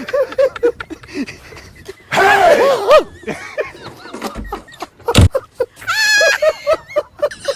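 Wordless vocal sounds from people: short yelps and cries, a loud scream about two seconds in, a sharp thump about five seconds in, and a high squeal just after.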